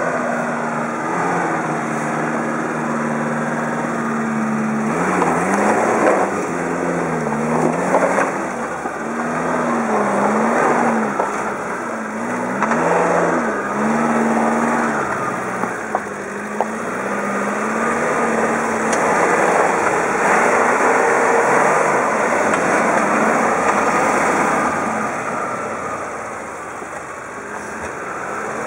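1988 Suzuki Samurai's four-cylinder engine working at low revs while rock crawling. It holds a steady note at first, then rises and falls over and over as the throttle is fed in to climb the ledge, and eases off near the end.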